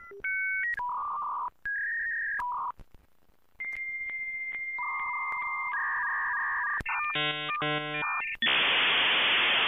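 Dial-up modem handshake: short beeping tones, then a long steady answer tone joined by a second tone about three and a half seconds in, a rapid warbling chirp near seven seconds, and then a loud rushing hiss from about eight and a half seconds.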